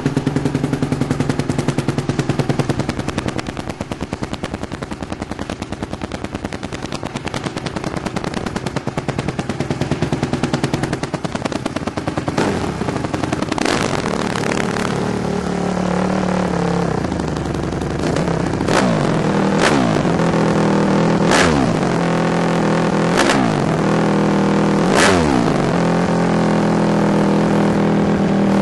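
Honda CRF150R's single-cylinder four-stroke engine idling with a fast, even run of firing pulses. In the second half the throttle is blipped about six times, each rev sweeping up sharply and falling back to idle.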